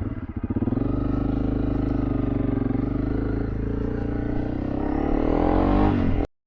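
Honda CRF300L Rally's single-cylinder four-stroke engine just started, running a little unevenly at first and then idling steadily. About four and a half seconds in the revs rise, and the sound cuts off suddenly near the end.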